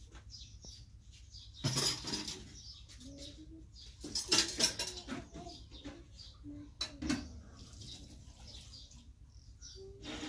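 Newborn puppies giving small, short squeaks and whimpers, with two louder rustling or scraping noises about two and four seconds in.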